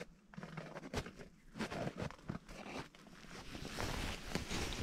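Close handling noise: irregular rustling and scraping with scattered clicks, growing busier near the end.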